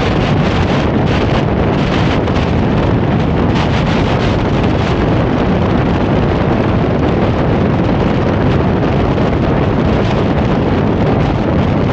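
Steady wind rush buffeting the microphone of a camera mounted outside on the hood of a moving car, mixed with the car's road noise.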